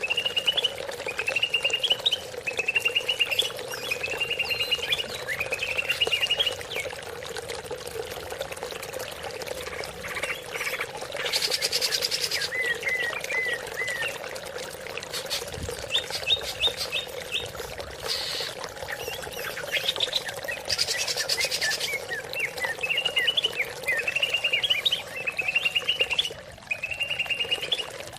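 Green leafbird (cucak ijo) singing: short rising trilled phrases repeated about once a second in runs, breaking off midway for scattered chirps before resuming. Running water sounds steadily underneath.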